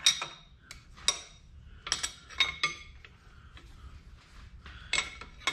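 Steel tools clinking against the steel machine vises and shaft on a milling machine table: about half a dozen sharp metallic clinks, each with a brief ring, three of them in quick succession about two seconds in.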